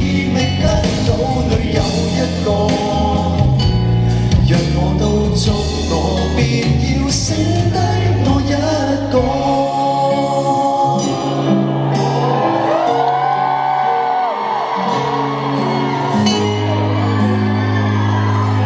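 Live pop-rock band music with singing, in a large hall. About halfway through, the bass and drums drop out for several seconds while the voices and upper instruments carry on, and the full band comes back near the end.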